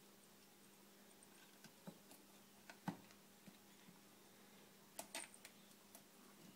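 Near silence with a faint steady hum, broken by a few light clicks and taps from kittens playing in a plastic basket and around a scratching post. The loudest tap comes about three seconds in, and a small cluster of clicks comes about five seconds in.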